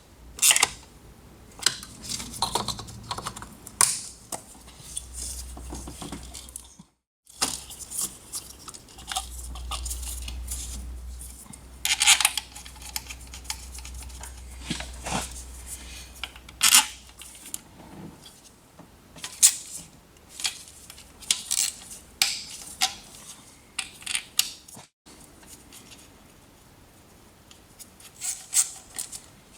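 Metal tools and parts clinking and clicking at irregular intervals as they are handled, with several edit cuts between the bursts of sound.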